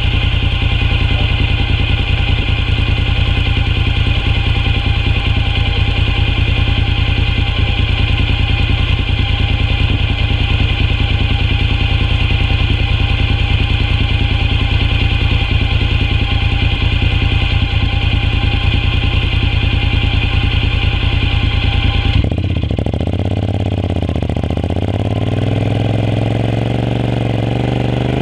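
Honda NC750X's parallel-twin engine idling steadily. About three-quarters of the way through, the sound changes suddenly and the engine note begins to rise and fall.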